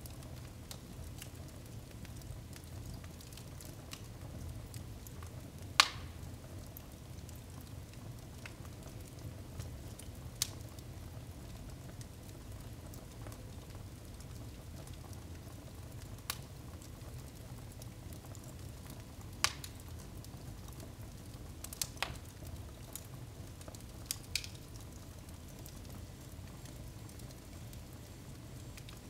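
Firewood burning in a fireplace: a steady low noise with sharp crackles and pops every few seconds, the loudest about six seconds in.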